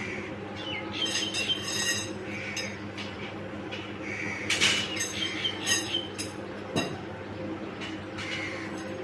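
Pieces of metal clinking and clanking against each other, with short ringing strikes about a second in and a cluster of louder ones between four and a half and six seconds. A steady low hum runs underneath.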